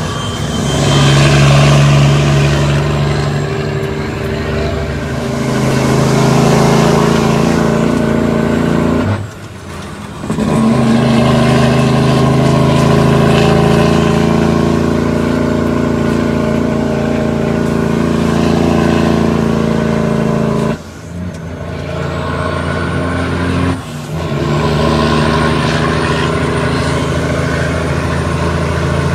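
Cummins ISX inline-six diesel in an International ProStar truck pulling steadily. The engine note drops out briefly three times, about a third of the way in and twice around two-thirds through, as the throttle is lifted for gear changes on the 18-speed transmission.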